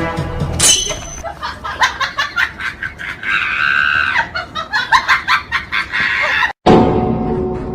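A person's high startled scream, held for about a second about three seconds in, among short bursts of laughter. The sound cuts off abruptly near the end and music follows.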